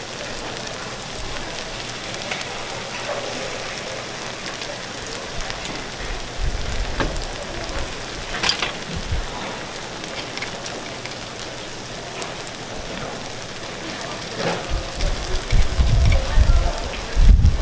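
Takoyaki cooking on a hot griddle: a steady sizzling hiss with a few sharp clicks. Low rumbling bumps come in near the end.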